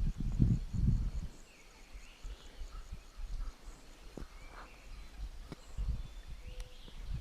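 Footsteps of people walking. The steps are heaviest in the first second, with faint bird chirps behind them.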